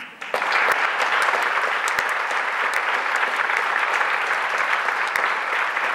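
Audience applauding in a theatre hall. It breaks out suddenly just after the start and keeps up steadily, with single sharp claps standing out from the mass.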